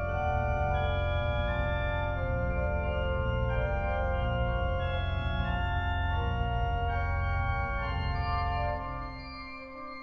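Concert pipe organ playing sustained chords that change every second or so over a deep pedal bass. Near the end the bass and the loud chords drop away, leaving a softer held note.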